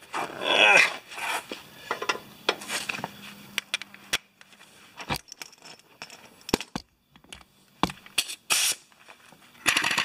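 Metal tools clinking and scraping against each other and the concrete as they are handled around a mower's blade. There is a louder rattling burst about half a second in and another near the end.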